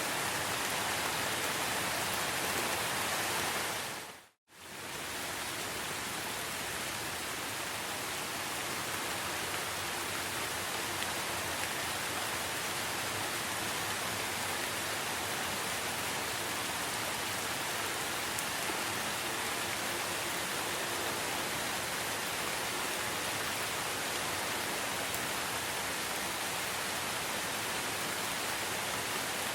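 Steady rain, an even hiss of falling drops. About four seconds in it fades out to silence for a moment and then comes straight back.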